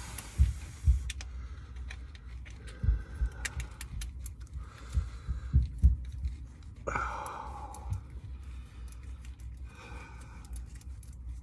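Hands-on work under a pickup truck: irregular dull thumps and scattered small metallic clicks and clinks as tools and the transmission sensor and its connector are handled.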